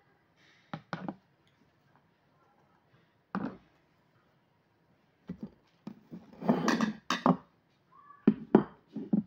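Hands handling food at a kitchen table, with scattered short taps and knocks as lumpia-wrapped chili peppers are set down on a plate and board. The loudest part is a denser cluster of clatter and rustling about two-thirds of the way through, followed by a few sharp knocks near the end.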